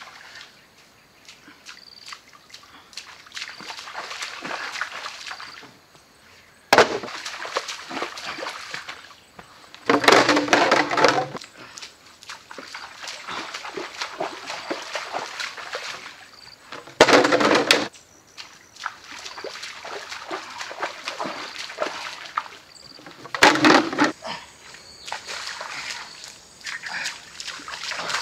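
Feet sloshing and splashing through a shallow stream as a person wades with bamboo poles, with four louder bursts of noise several seconds apart. A faint high call repeats every second or two.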